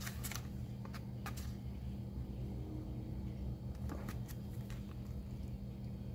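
Pages of a paper catalogue flipped by hand: quick rustles and flicks of paper, bunched in the first second and a half and again about four seconds in, over a steady low hum.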